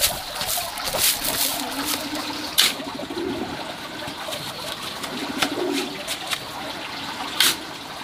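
Loose soil pouring and pattering from a basket onto a heap, then a metal spade scraping and knocking on a concrete floor three times as it digs into the heap.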